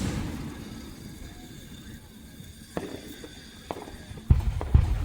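Aerial fireworks bursting: a rumble dies away at the start, a few sharp cracks come around the middle, and two heavy booms about half a second apart come near the end.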